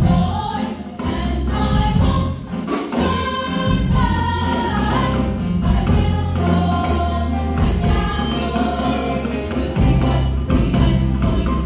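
Mixed gospel choir singing in harmony, with a live band behind it: sustained bass notes that change every second or two and a light beat.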